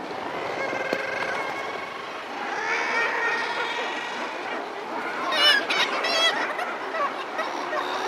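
Seabird cliff colony: many overlapping calls from kittiwakes, guillemots and gulls, with a burst of loud, fast-quavering calls about five to six seconds in, over the steady hiss of distant surf.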